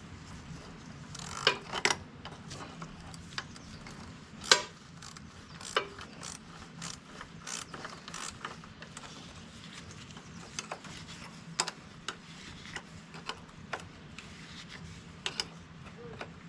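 Hand tools clicking and clinking on metal in irregular sharp taps as a hydraulic hose fitting on a backhoe is tightened.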